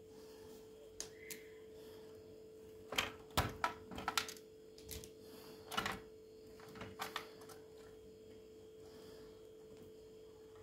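Irregular sharp clicks and knocks, most of them bunched together in the middle, over a steady hum.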